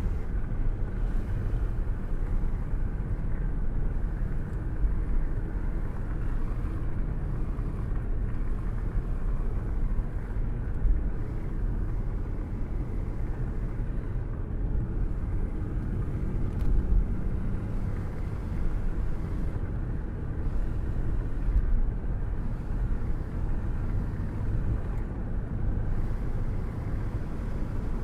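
Steady, dull-sounding rain with a deep rumble of thunder underneath, swelling a little louder a few times.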